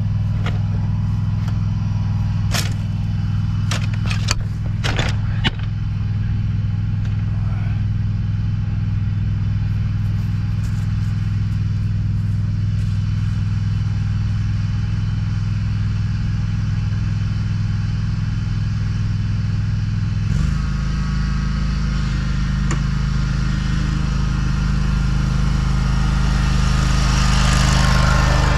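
Exmark Staris stand-on mower engine running steadily while it pushes leaves with a front-mounted leaf plow, with a few sharp clattering knocks a few seconds in. About twenty seconds in the engine note drops and changes, and a rushing hiss builds near the end.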